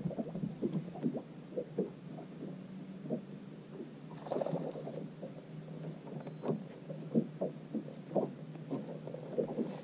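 Small waves lapping and slapping irregularly against the hull of a bass boat, with a faint steady low hum underneath.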